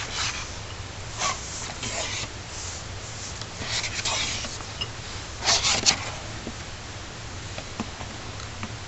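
Handling noise from a folded Polaroid SX-70 Alpha 1 camera turned over in the hands: scattered rubbing and light clicks of fingers and the metal-and-leather body, with the loudest cluster a little past halfway through.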